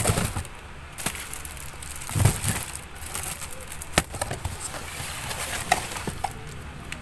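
Cardboard delivery boxes being handled and set down: scattered knocks and rustling, with a low thump about two seconds in and a sharp knock about four seconds in.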